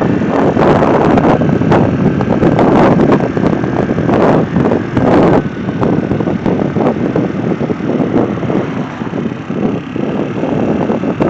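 Wind buffeting the microphone: a loud, gusting rumble that rises and falls.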